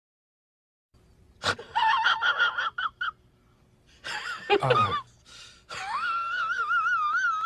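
High-pitched wheezing, gasping voice sound effect in three bursts after about a second of silence. The last and longest burst wavers up and down in pitch.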